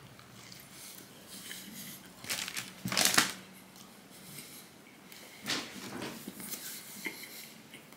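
Chewing and wet mouth smacks from a mouthful of turkey and lettuce wrap, a few sharp crunchy clicks among them, the loudest about three seconds in.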